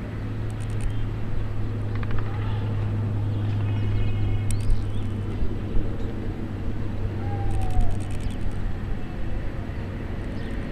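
Outdoor ambience with a steady low motor hum, like a vehicle or distant aircraft, that fades about six seconds in. A few faint chirps are heard over it.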